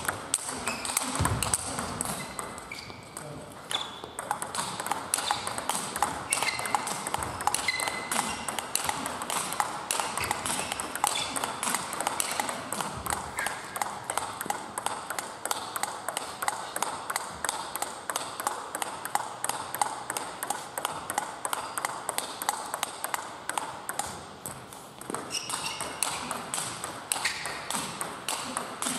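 Table tennis balls being struck by paddles and bouncing on the tables in fast, continuous rallies: a dense stream of sharp pinging clicks from more than one table at once.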